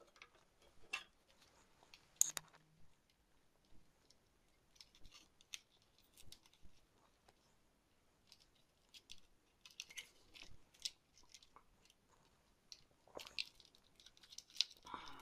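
Faint, scattered clicks and light scrapes of a Thermalright 120 mm plastic cooler fan and its wire fan clips being handled, with a few sharper clicks about two seconds in and near the end.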